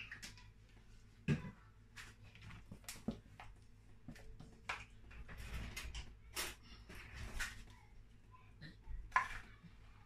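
Wooden spoon stirring and scraping pancake batter in a plastic bowl, with a few sharp knocks and clatters of kitchen utensils, the loudest about a second in.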